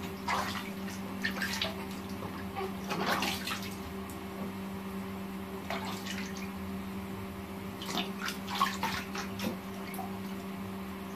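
Bathwater sloshing and splashing in a plastic baby tub as a newborn is washed by hand, in short irregular splashes, over a steady low hum.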